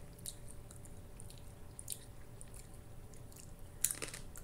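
Faint crunching and chewing of roasted coconut chips, small crisp crackles, with one sharper crunch about four seconds in as another chip is bitten.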